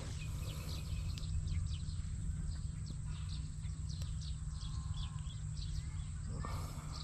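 Outdoor ambience: a low, steady rumble of wind on the microphone, with many short, high chirps scattered irregularly throughout, and a brief rustle near the end.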